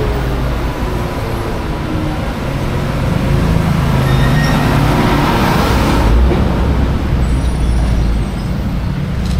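Road traffic: a steady engine rumble, with a louder passing vehicle that swells over a few seconds and cuts off sharply about six seconds in.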